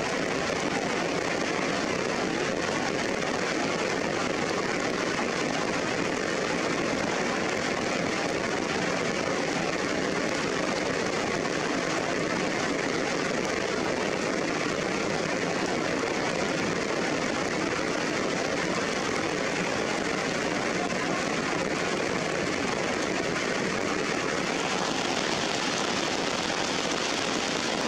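Steady rain falling on foliage: an even, unbroken hiss.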